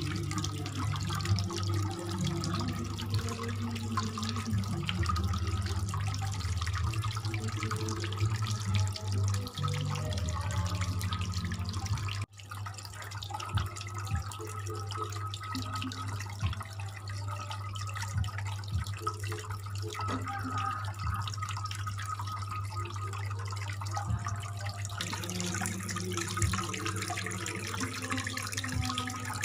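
Water trickling and splashing from a small homemade cement fountain, driven by an aquarium water pump, over a steady low hum. The sound breaks off abruptly about 12 seconds in and then carries on the same.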